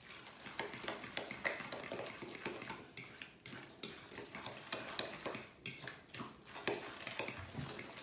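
A fork clicking and scraping against a glass mixing bowl as it stirs wet minced fish with egg and chopped onion, in quick irregular strokes.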